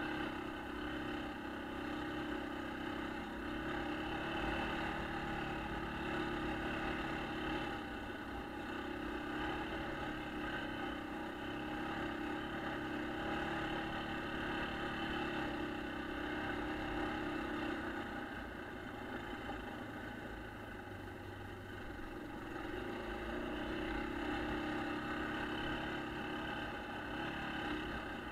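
A 1996 Yamaha Kodiak ATV's single-cylinder four-stroke engine running steadily on the throttle. It eases off for a few seconds a little past the middle, then picks back up.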